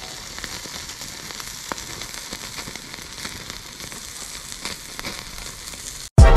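Steak and vegetables sizzling on a grate over charcoal: a steady hiss with scattered small crackles. Loud music cuts in right at the end.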